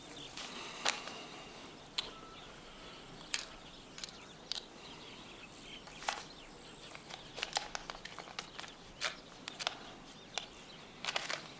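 Paper rustling and crinkling in short, irregular crackles as a letter and its envelope are handled and unfolded, the crackles coming more thickly in the second half.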